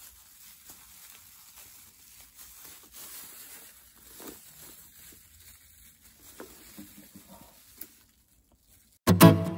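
Thin plastic wrapping crinkling and rustling in the hands as it is peeled off a handbag's chain strap, faint and irregular with small ticks. Near the end it stops briefly, then acoustic guitar music starts loudly.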